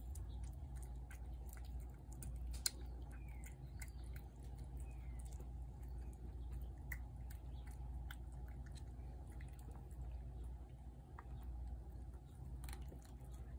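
Cats eating wet cat food from a plate: irregular wet chewing and clicking of jaws and teeth, over a steady low rumble.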